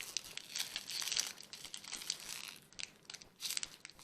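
Advent calendar packaging crinkling and tearing as a small toy figure is unwrapped: an irregular rustle with small crackles that thins out near the end.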